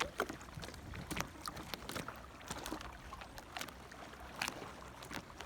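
Lake water splashing in a quick, irregular series of small splashes over a faint steady hiss.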